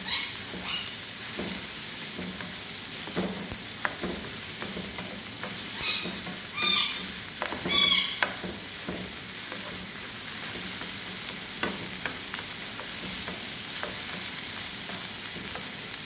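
Chicken hearts and onion sizzling in oil in a non-stick frying pan, stirred with a wooden spatula that scrapes and clicks against the pan. A few brief high squeaks stand out about six to eight seconds in.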